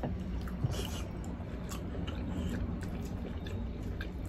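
Close-up eating sounds as two people eat saucy pork-leg kare-kare and rice with their hands: wet chewing, lip smacks and soft squishes, heard as scattered short clicks over a steady low hum.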